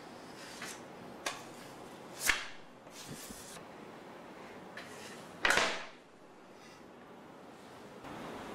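A metal scraper pushed across a thin layer of set chocolate on a worktop, lifting it into curls: a few short scraping strokes, the loudest about two seconds and five and a half seconds in.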